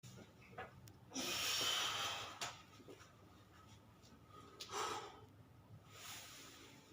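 A person breathing heavily, with a long loud exhale about a second in and another near five seconds, and a few faint sharp clicks between them: knee joints cracking.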